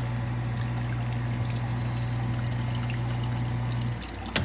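Submersible sump pump running with a steady hum and water churning in the pit, cutting off about four seconds in. Right at the end, the failing check valve's flapper starts to bang as water leaks back down through it.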